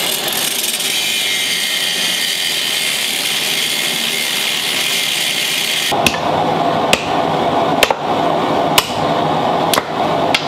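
Angle grinder cutting a steel railroad spike, running with a steady high whine. About six seconds in it gives way to a hammer striking the spike on a small steel anvil, roughly one blow a second, over a steady background rush.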